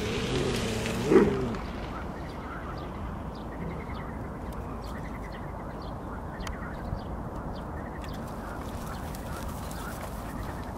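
Airedale terrier and Irish terrier play-fighting, one giving a loud growling vocal sound that peaks about a second in. After that only steady outdoor background noise with faint, short, high chirps.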